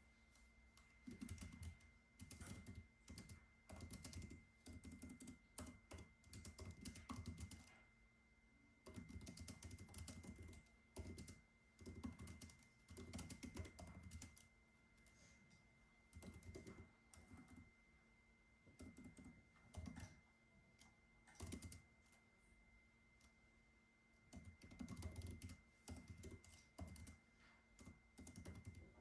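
Typing on a computer keyboard: quick runs of keystrokes broken by short pauses, with a faint steady high tone underneath.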